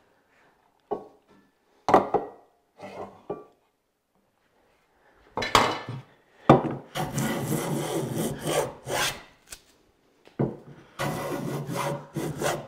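A metal jack plane with a cambered iron taking shavings along the edge of a hardwood board: a series of rasping strokes from a little under halfway in. Before that come a few light knocks as a steel try square is set against the edge.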